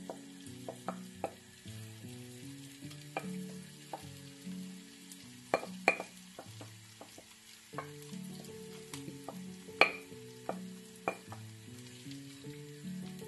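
Chicken mixture sizzling in hot oil in a frying pan as it is scraped in and spread with a wooden spoon, the spoon knocking against the glass bowl and pan several times, loudest about six and ten seconds in. Soft background music with stepped notes plays underneath.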